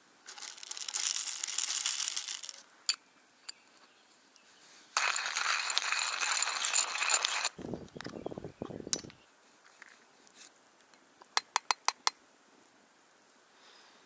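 Camp gear being handled: two spells of crinkling, rustling noise, a brief low rumble, and then a quick run of about six sharp clinks near the end.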